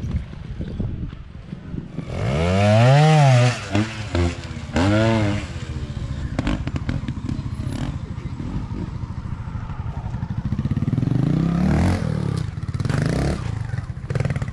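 Sherco 2023 fuel-injected trials motorcycle engine blipped hard several times about two to five seconds in, the revs rising and falling each time, then idling low before a longer rise and fall of revs near the end as the bike works over steep rock.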